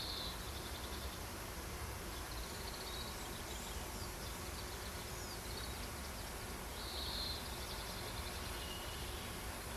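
Wild birds giving short, high calls and chirps, a brief buzzy call near the start and another about seven seconds in, over a steady low outdoor rumble.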